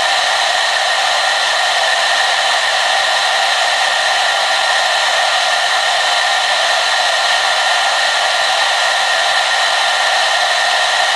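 Hair dryer running continuously at a steady speed: an even, unchanging rush of air with a whining hum from its small motor and fan.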